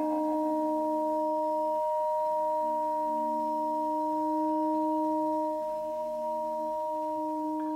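Intro music: a chord of a few long, steady held tones, with no beat and no vocals. The lower notes shift slightly partway through.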